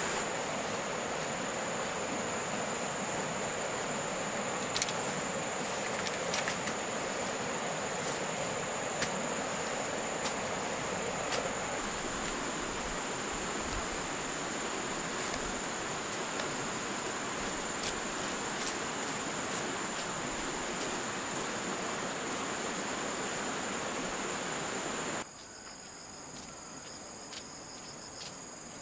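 Insects chirring in one steady high-pitched tone, over a steady rushing background noise with scattered light ticks. About 25 seconds in, the rushing noise cuts off and everything gets quieter, leaving the insect tone with a second, lower one.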